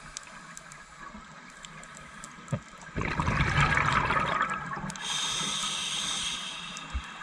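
Scuba diver breathing through a regulator underwater: a burst of exhaled bubbles starts about three seconds in and lasts about two seconds, followed by the hiss of the next inhalation through the regulator.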